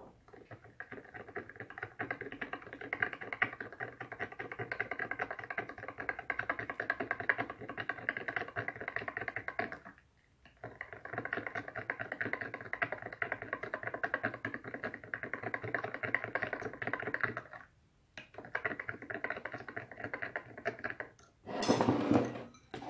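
A thin plastic straw stirring a milky white liquid fast in a drinking glass, with rapid, even clicking against the glass. The stirring comes in three spells with short pauses, and there is a louder clatter near the end as the glass is set down and a bowl is moved.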